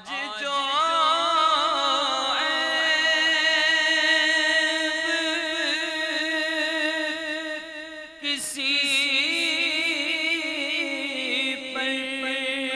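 A man singing a naat unaccompanied into a microphone, holding long ornamented notes with a wavering pitch. He breaks briefly for breath about eight seconds in.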